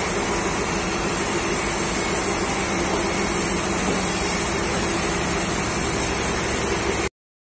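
Forklift engine running steadily under load as it pushes a large log, with a steady high-pitched hiss above it. The sound cuts off abruptly near the end.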